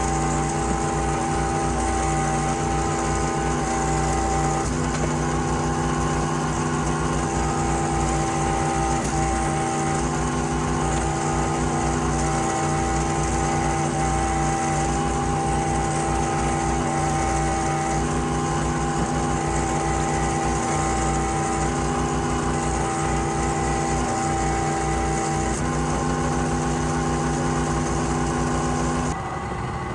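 Small gasoline engine of a wood-processing machine running steadily at a constant speed, with a sudden change in its sound about a second before the end.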